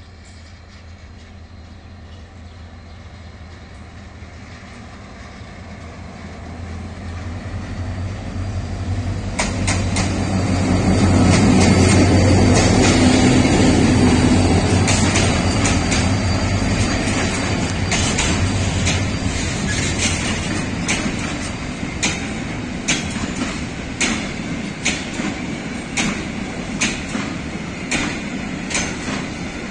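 EMD GT26CW-2 diesel-electric locomotive with its 16-cylinder EMD 645E3C two-stroke engine, pulling a long freight train. Its engine sound grows steadily louder as it approaches and is loudest as it passes close, about twelve seconds in. Then loaded container wagons roll by with repeated clacks of wheels over rail joints, often in pairs.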